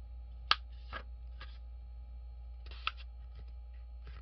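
A sheet of paper being handled and pressed flat along a fresh fold, with short sharp crackles and taps, the loudest about half a second in and another near three seconds in, over a low steady hum.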